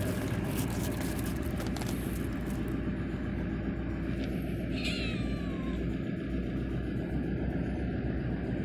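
A cat meows once, a short cry that falls in pitch about five seconds in, over a steady low rumble, with rustling and knocks in the first few seconds.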